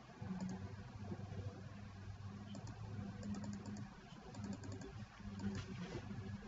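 Computer keyboard typing in short runs of quick keystrokes, over a steady low hum.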